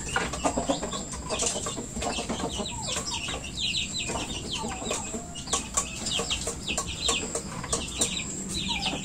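Chickens clucking, with runs of quick high chirps and scattered sharp clicks.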